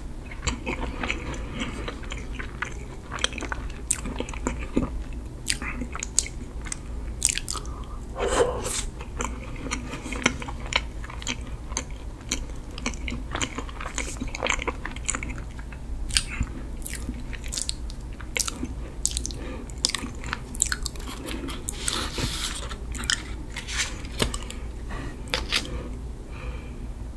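Close-miked chewing of a chocolate-glazed mini sponge cake, with many small, sharp wet mouth clicks and smacks throughout.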